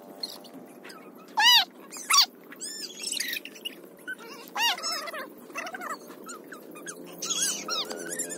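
A dog yelping: a run of short, high yelps, loudest about a second and a half and two seconds in.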